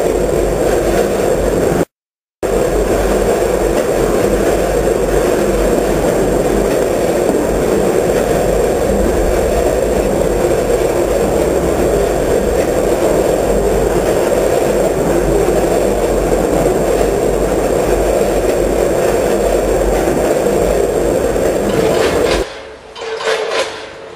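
Loud, steady machinery noise from a running food-weighing and packing line, cut off completely for about half a second near the start. Near the end it changes to a rattling clatter of product and hopper gates on a multihead weigher.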